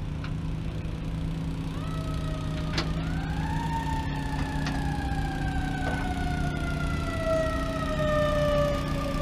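A siren sounds in the distance: it rises about three seconds in, then slides slowly down in pitch through the rest. Underneath it, a vehicle engine idles steadily close by, and there is one sharp knock near three seconds in.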